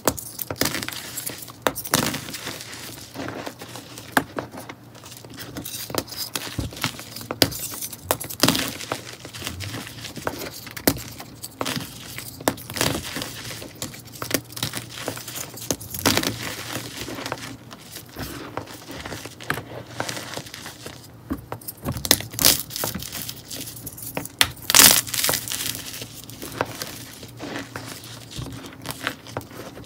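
Hands crushing and crumbling dry, dusty red-pink blocks into powder: an irregular run of crisp crunches and crackles, with one sharper, louder crunch about twenty-five seconds in.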